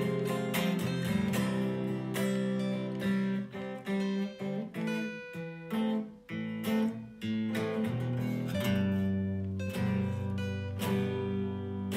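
Guitar music: strummed chords and plucked notes with no singing, broken by a few short gaps between chords in the middle.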